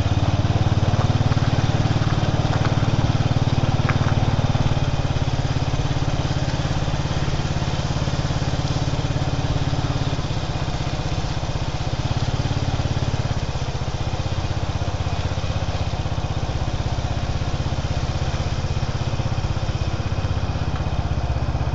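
Motorcycle engine running steadily while riding, heard close up from on the bike, with road and wind noise.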